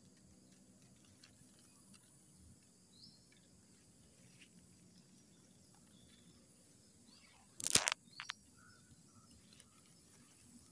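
Quiet rural outdoor ambience with a steady faint high hiss and a few faint, short bird-like chirps. About eight seconds in, a brief loud rustling knock stands out as the loudest sound.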